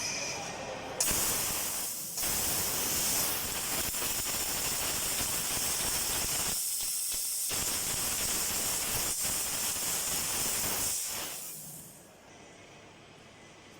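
Steady high hiss of the LX3015FT fiber laser cutter's assist-gas jet during cutting. It starts abruptly about a second in, thins briefly twice, and dies away near the end.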